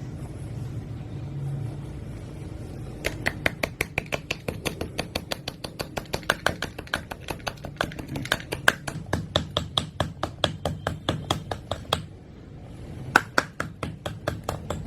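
Rapid chipping at a block of frozen ice with a hard tool: a fast, even run of sharp knocks, about five a second, starting about three seconds in, breaking off briefly near the end and then resuming.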